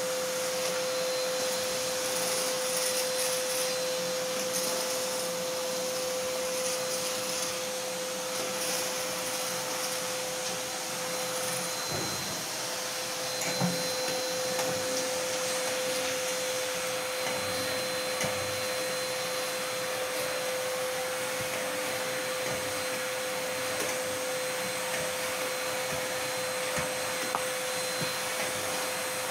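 Vacuum cleaner running steadily with a constant whine, its hose worked along a window and grille. A couple of light knocks come near the middle.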